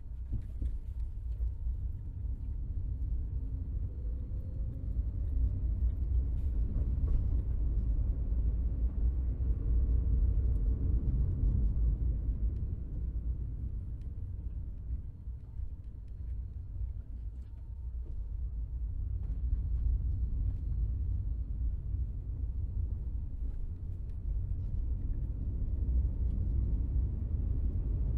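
Low rumble of engine and road noise inside a moving car's cabin, swelling and easing several times, with a faint rising whine a few seconds in.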